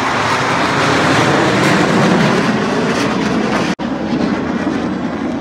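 Military jet aircraft flying past: a loud rushing roar that swells to a peak about two seconds in, cutting out for an instant about two-thirds through.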